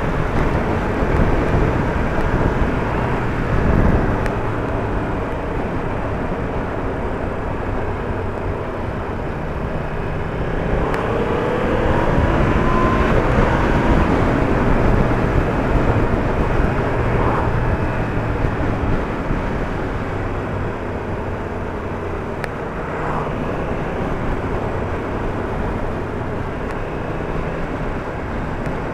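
Yamaha MT-10 motorcycle's inline-four engine running on the move, under a steady rush of road noise. About eleven seconds in the engine note climbs for a few seconds as it accelerates.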